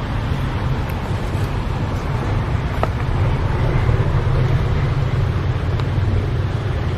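Steady low rumbling background noise, with a few faint clicks, one about three seconds in.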